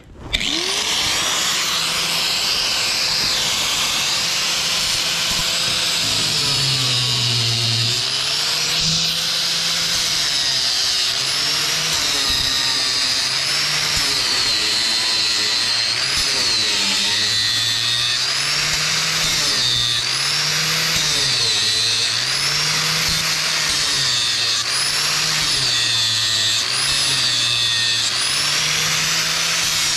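Handheld electric power tool cutting through metal fasteners in deck framing. It starts right at the outset and runs without a break, its motor pitch dipping and recovering every second or two as the cut loads and eases.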